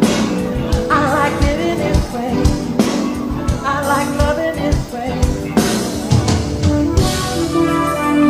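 Live pop music: a lead vocal singing wavering phrases over a band with a steady drum beat and sustained chords.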